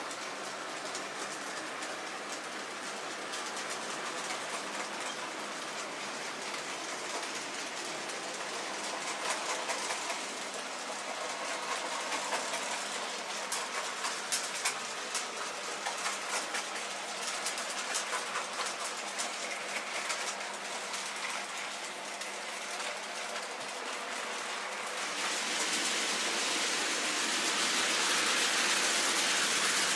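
N gauge model trains running on the layout's track: a steady, hiss-like whirr of small wheels and motors, with a run of light clicks through the middle. A few seconds before the end the sound turns brighter and louder.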